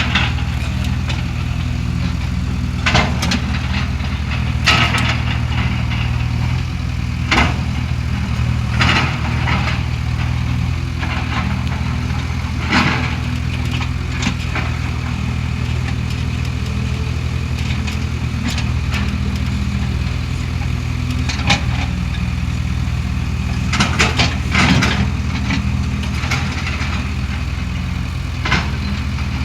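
Diesel engine of a heavy construction machine such as an excavator or backhoe loader, running steadily, with occasional short, sharp knocks over the engine noise.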